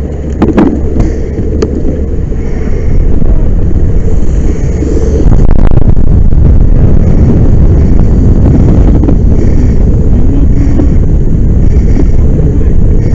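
Loud, steady low rumble of a large fuel fire, with wind buffeting a helmet-mounted microphone. A few sharp knocks come in the first two seconds, and the rumble grows louder about three seconds and again about five and a half seconds in.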